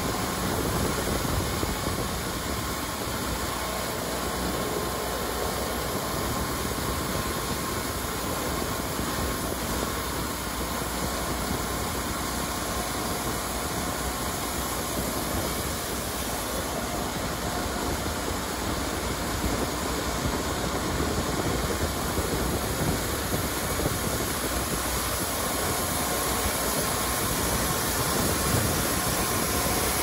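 Wood-Mizer LT40 sawmill's engine running steadily, without a cut being made.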